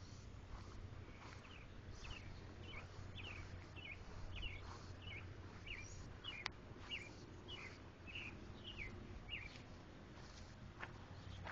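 A bird repeating a short, falling chirp about twice a second for several seconds, over a low steady hum. A few footsteps crunch on gravel near the end.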